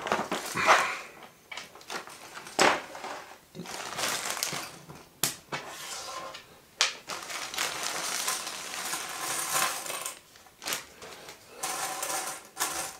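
Plastic bag crinkling as it is opened and shaken, with the 3D puzzle pieces clattering and clicking onto a wooden table as they are poured out and spread by hand.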